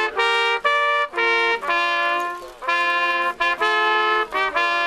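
A single trumpet playing a slow melody of separate held notes, one at a time, with short breaks between them and a brief pause about halfway.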